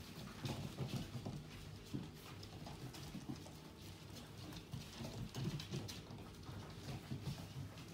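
Paws and claws of an adult Welsh springer spaniel and six-week-old puppies clicking and pattering on a hard floor as they move about, in quick, irregular taps.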